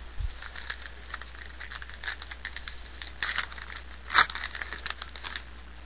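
Trading cards and card packs being handled: a run of short rustles and flicks, with a sharper snap about four seconds in.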